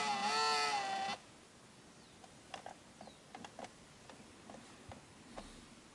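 Sony Video Walkman's Video 8 tape mechanism motor whining for about a second as the unit powers up with a tape loaded, its pitch wavering slightly, followed by a few faint clicks.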